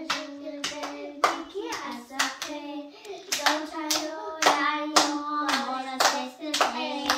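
Young children singing a hymn together on long held notes while clapping their hands along, about two claps a second.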